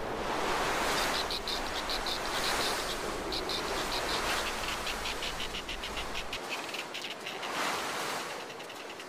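Blizzard wind rushing in gusts, with fast runs of short, high chattering calls from snow petrels through most of it.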